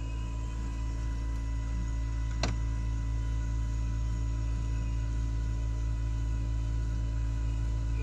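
Outdoor unit of a Gree Versati III 8 kW air-to-water heat pump running: a steady low hum with constant whining tones above it, and a single sharp click about two and a half seconds in.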